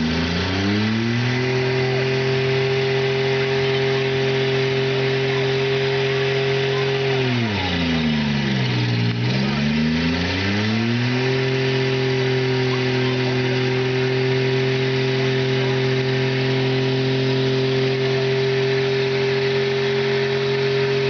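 A demolition derby car's engine held at high revs during a tyre-smoking burnout, over the steady hiss of the spinning tyres. The revs climb in the first second, drop away about eight seconds in, climb back a few seconds later and hold high.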